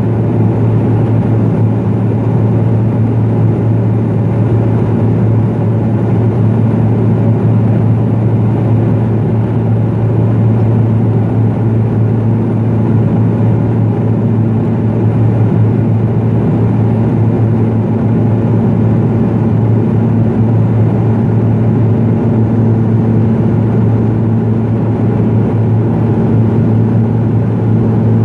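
Cabin noise of a Pilatus PC-12 in flight: its single Pratt & Whitney Canada PT6A turboprop and propeller make a steady low drone with rushing air noise, unchanging throughout.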